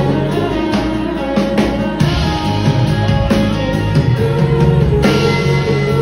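A rock band playing live on a club stage through the PA: guitars, including a strummed acoustic guitar, over a drum kit.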